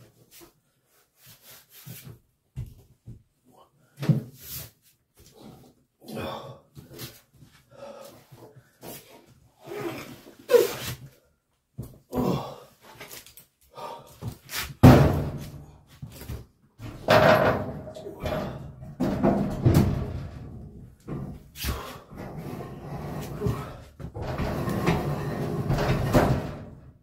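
Clunks and knocks of a heavy rack-mount EG4 LifePower4 48V battery being handled against a steel server rack, growing louder and busier about halfway through, then a longer scrape near the end as the battery is pushed into its slot on the rack rails.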